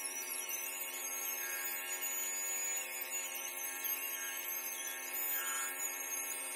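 Handheld wet stone polisher spinning its pad along the edge of a granite vanity's sink cutout, with a steady whine.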